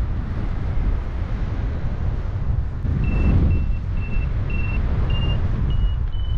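Wind rushing over the microphone in flight. About halfway through, a flight variometer starts beeping: short, even beeps about twice a second, slowly rising in pitch, the climb tone that signals the glider going up in a thermal.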